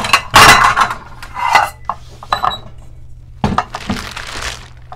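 Stainless steel pots and pans clanking against each other as they are handled, with several ringing knocks in the first half, then a crinkle of plastic wrapping near the end.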